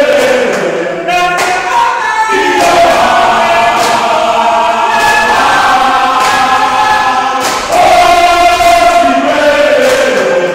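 A group of male rugby players singing together in chorus, loudly, holding long notes that move in pitch.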